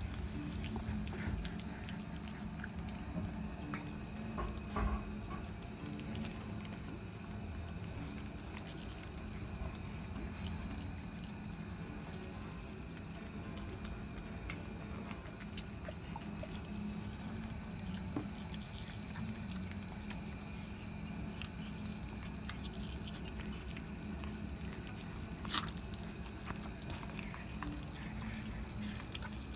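Kittens eating pieces of mackerel from a plate: wet chewing, lapping and smacking with small scattered clicks. A small collar bell jingles now and then.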